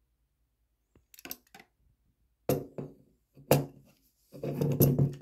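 Handling noise of a Hubbell NEMA 14-50 receptacle being turned over in the hand. A few light clicks come about a second in, then several sharp knocks and a longer clatter of its plastic body and metal mounting strap against a hard surface near the end.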